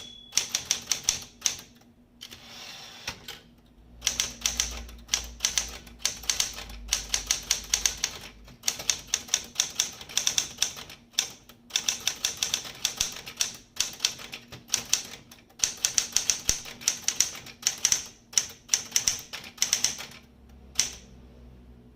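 SCM (Smith-Corona) Sterling 12 manual typewriter being typed on: quick runs of sharp clacking key strikes, with a short break about two seconds in. The typing stops about a second before the end.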